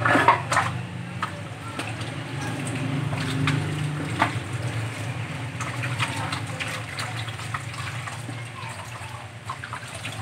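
Water splashing and sloshing as a large carp is rubbed and washed by hand in a stainless steel sink, with scattered wet clicks and knocks of the fish against the basin over a steady low hum.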